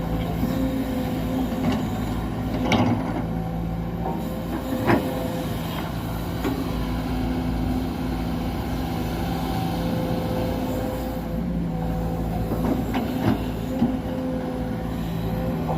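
Excavator's diesel engine running steadily, with a few short, sharp knocks: one about three seconds in, another about five seconds in, and two close together near the end.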